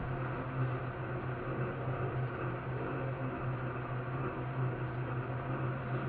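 Tilt-head stand mixer running at a steady speed: a continuous motor hum with a strong low tone that does not change.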